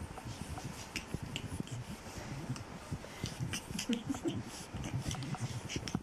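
Pug puppies scrambling on a soft blanket and being handled, with snuffling breaths, rustling and many small scattered clicks.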